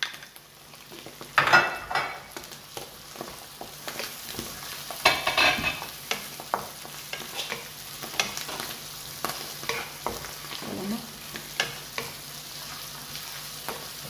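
Sliced vegetables and mushrooms sizzling in a hot non-stick frying pan while a wooden spatula stirs them, with small taps against the pan and two louder scraping strokes, about a second and a half in and around five seconds in.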